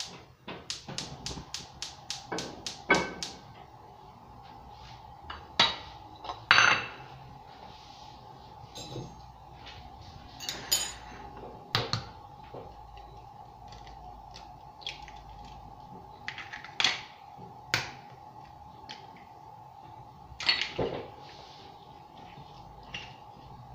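Gas stove's electric igniter clicking rapidly, about six clicks a second for the first three seconds, as a burner is lit. Then scattered clinks and knocks of a metal spoon against a ceramic dish, over a faint steady hum.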